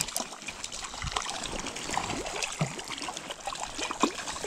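Shallow stream water trickling and splashing, with a small hooked trout thrashing at the surface and irregular small splashes throughout.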